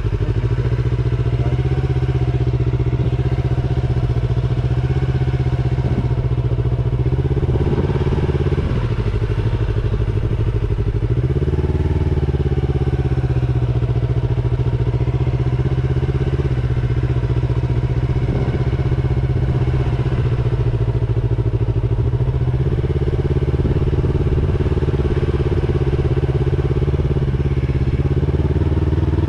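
Road motorcycle engine running at low, steady revs while being ridden over a dirt track. Twice near the middle the revs drop and then pick up again as the throttle is eased off and reopened.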